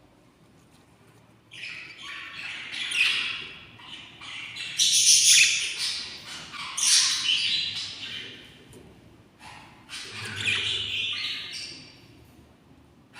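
Budgerigar chicks giving raspy, high-pitched begging calls in repeated bursts, starting about a second and a half in: hungry chicks calling to be fed.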